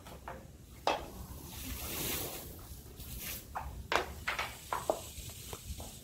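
Thin disposable aluminium foil pan being handled and lifted, giving a series of sharp crinkling clicks, with a hiss of water being poured or splashed out of it between about one and three seconds in.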